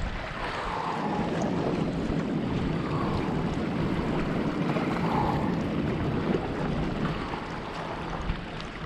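Wind buffeting the microphone, with sea surf washing against a rocky shore and swelling softly every couple of seconds.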